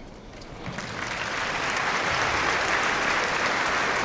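Applause, many hands clapping, building up over the first second and then holding steady.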